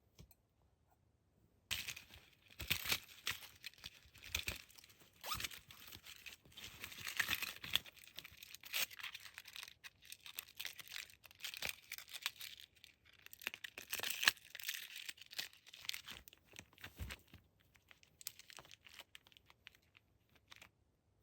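Packaging crinkling and tearing as an item is unwrapped by hand, starting about two seconds in with many sharp crackles.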